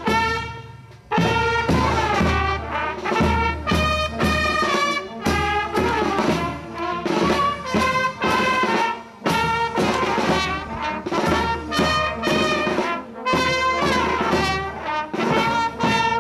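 Brass band playing a tune in short phrases, with brief breaks about every four seconds.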